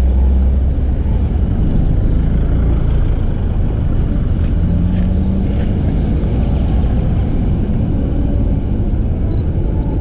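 Road traffic: car engines and tyres running past in a steady low rumble, with one engine note rising briefly about halfway through.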